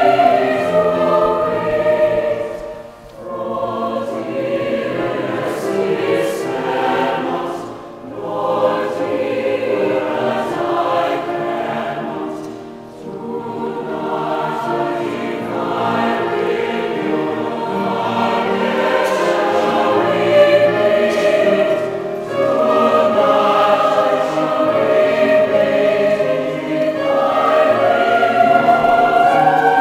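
Large mixed choir singing, with short breaks between phrases about three, eight and thirteen seconds in.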